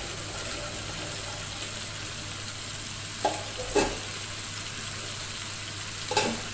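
Chicken pieces sizzling in oil in a wok, a steady frying hiss. A couple of short knocks come about halfway through, and another near the end.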